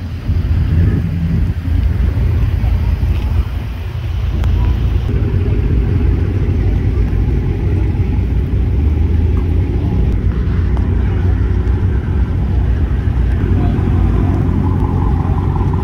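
Car engines idling with a steady low rumble that grows fuller about five seconds in, with people talking in the background.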